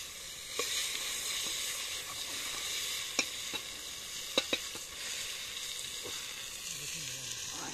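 Morel mushrooms sizzling as they fry in masala in a metal pot over a wood fire. A metal spoon stirs them, clinking sharply against the pot a few times around the middle.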